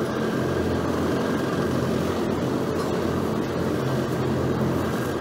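Steady low mechanical hum with an even rushing noise behind it, the background drone of a supermarket's machinery.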